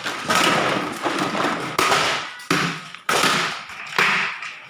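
Plastic chair scrap grinder crushing hard plastic chair pieces: irregular sharp cracks and thuds, about one a second, each fading out, over a faint steady machine whine.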